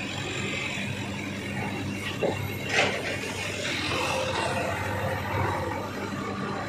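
Steady drone of sugar-mill cane-carrier conveyor machinery running, with two sharp knocks about half a second apart a little over two seconds in.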